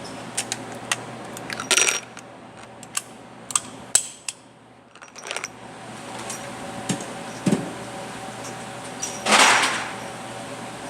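Light metallic clicks and clinks of small metal objects being handled, with two louder, longer noisy sounds about two seconds in and near the end.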